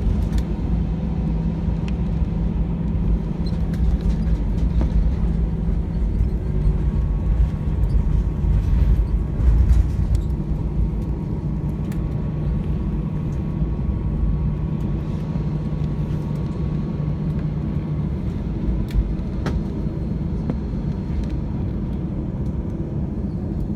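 Cabin noise of an Airbus A320-200 rolling out after touchdown and taxiing: a heavy, steady low rumble from the engines and the landing gear on the runway and taxiway, loudest early on the rollout, with a steady engine hum that drops away about three quarters of the way through.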